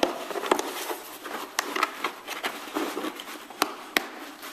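Handling noise as a metal shade bracket's studs are pushed through the holes of a folded lamp shade panel: rustling of the panel with a few scattered sharp clicks.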